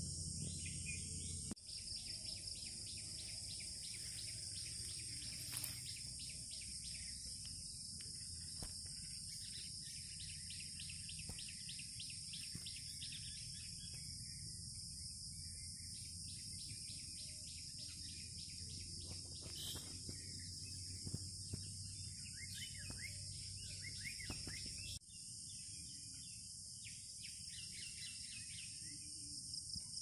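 Faint woodland ambience: a steady, high-pitched insect chorus, with birds calling in quick runs of chirps on and off throughout.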